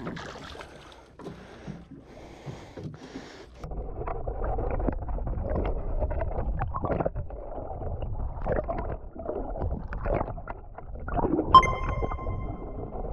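Water rushing and bubbling over a lure-mounted GoPro housing as the hooked mahi-mahi is drawn through the sea, loud and choppy after about three and a half seconds of quieter wind and water above the surface. Near the end a sharp hit is followed by a short ringing ding.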